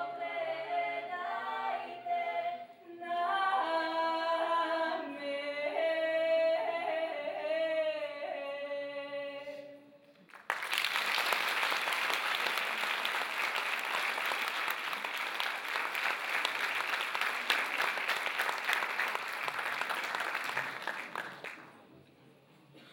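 Mixed-voice a cappella vocal group singing in harmony, ending on a long held chord. Then audience applause for about eleven seconds, fading out near the end.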